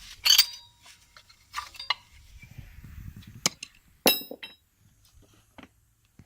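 Hand tools and metal parts clinking and clanking: a few sharp metallic knocks with brief ringing, the loudest just after the start and about four seconds in, with handling rustle between them.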